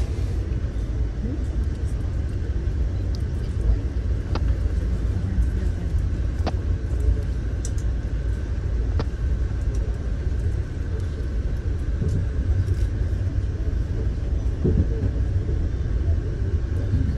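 Steady low rumble of a passenger train running at speed, heard from inside the coach, with a few sharp clicks scattered through it.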